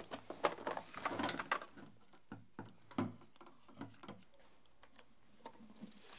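Clicks and rattles of a plastic first-aid box being opened and its contents handled, busy for the first second and a half, then a few scattered single clicks.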